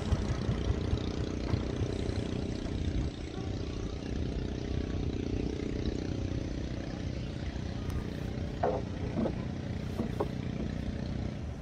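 A small tour boat's engine running steadily, a little quieter from about three seconds in, with a few short pitched sounds over it near the end.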